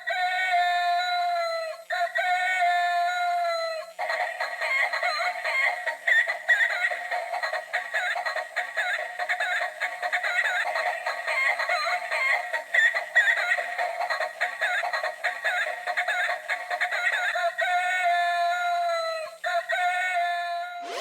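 Electronic musical toy rooster sounding through its small speaker. It gives a synthetic crow of two long held notes, then a fast, busy electronic jingle, and the crow again near the end.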